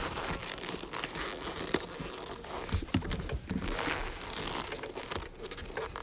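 Boxing gloves rubbing and crinkling against each other and the cube as they fumble a Rubik's cube, with scattered clicks and knocks of the cube's layers being turned.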